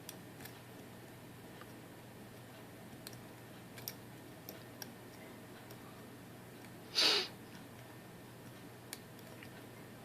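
Faint, sparse clicks of a dimple pick setting the outer pins of a Mul-T-Lock interactive lock, whose pins are thought to be serrated. A short hiss about seven seconds in is the loudest sound.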